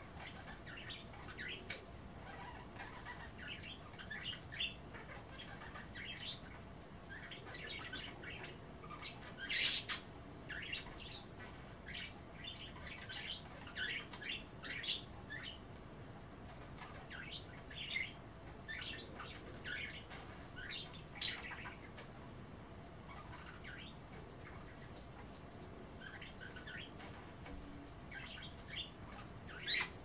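Budgerigars chattering: a steady stream of short chirps and warbles, with a couple of louder sharp calls, one about ten seconds in and another about twenty-one seconds in.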